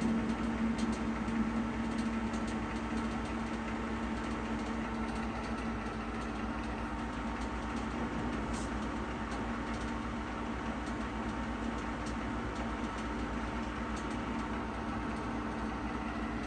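Pinacho SP/250 lathe running with its cross slide under power feed: a steady mechanical hum of the headstock and feed gearing with a low steady tone, easing slightly over the first few seconds.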